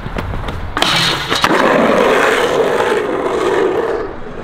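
Skateboard wheels rolling over pavement with a steady rumble, after a couple of sharp knocks about a second in, fading away near the end.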